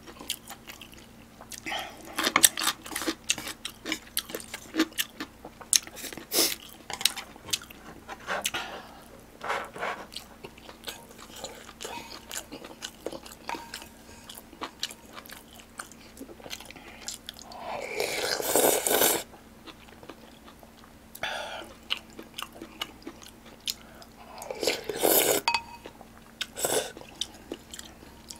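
Close-miked eating sounds from a person eating yukgaejang (spicy beef soup) and side dishes: chewing and smacking as many small wet clicks, with two longer, louder noisy sounds in the second half.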